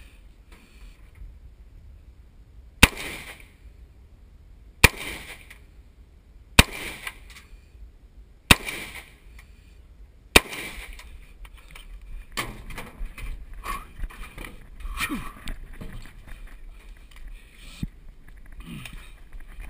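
Five aimed AR-15 rifle shots, spaced about two seconds apart, each a sharp crack with a short echo. After the last shot come irregular knocks and scuffing of handling and movement.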